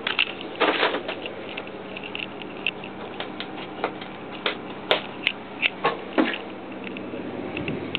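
Light plastic clicks, taps and rattles of an RV bathroom's folding accordion door being handled and moved, with a few sharper knocks near the middle, over a steady low hum.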